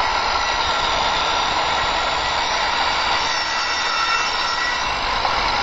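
Handheld electric power saw running steadily as it cuts through the end of a wooden roof-rack crossbar.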